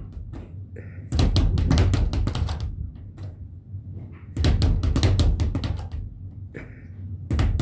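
A speed bag hit in quick flurries, rattling against its wooden rebound platform: three runs of rapid thuds, each about a second and a half long, with short pauses between.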